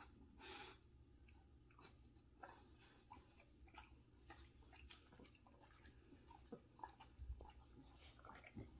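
Bulldogs chewing small bits of leafy green vegetables off a rug: faint, irregular crunching and clicking, with a short breathy sniff about half a second in.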